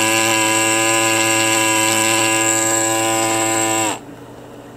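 Pneumatic air scribe buzzing steadily as it chips rock matrix off a fossil crab concretion; it cuts off about four seconds in, the pitch sagging slightly as it winds down.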